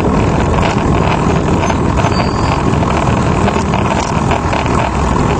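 Steady rush of wind on the microphone and tyre noise from a recumbent bicycle rolling along a paved trail.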